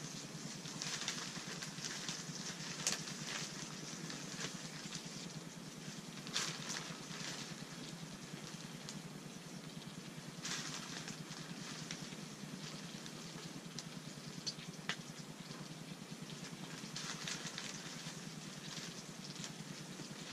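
Flour-dredged perch fillets frying in a copper pan on a propane camp stove: a steady sizzle with fine crackling, which swells for a moment three times as more fillets go into the pan.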